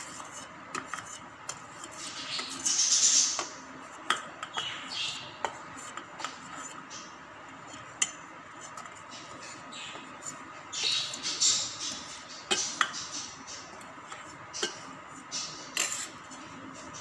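Steel spoon scraping and clinking against steel bowls and plates as dry flour and ground spices are spooned and tipped into a bowl, with a few short scraping stretches and several sharp clinks.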